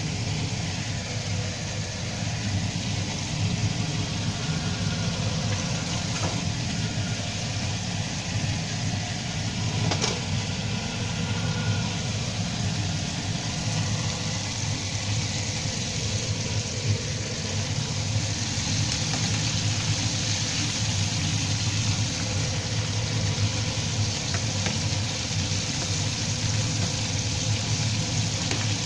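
Chicken frying in hot oil in a stainless steel pan, a steady bubbling sizzle over a steady low hum.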